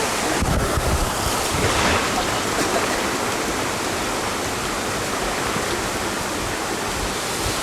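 Steady rush of running water from a water slide, an even noise that holds at one level without a break.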